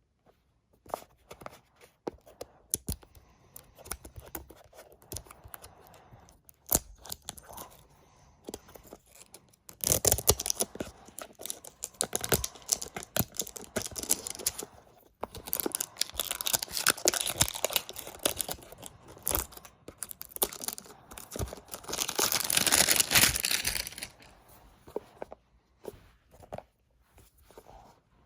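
Plastic toy packaging being handled, torn open and crinkled by hand. At first there are scattered clicks and rustles; about a third of the way in comes sustained tearing and crinkling, loudest a few seconds before the end.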